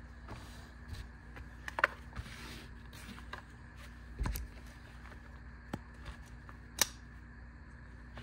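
Hands opening a retail package: scattered sharp clicks and taps of plastic packaging being handled, a short rustle about two and a half seconds in, and a dull thump a little after four seconds.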